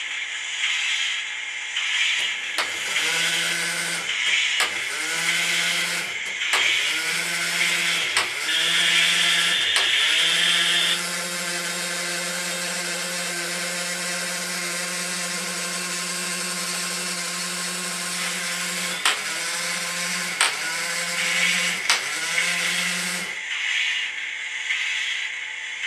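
Small electric motor of a model railway turntable with a tank locomotive on it, whining. It starts in several short spurts, each rising in pitch as it spins up, then runs steadily for about twelve seconds before cutting off suddenly, with a few sharp clicks near the end.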